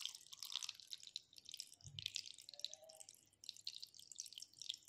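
Faint trickling and dripping of water as cloudy soaking water is slowly poured off the top of a steel vessel of clams.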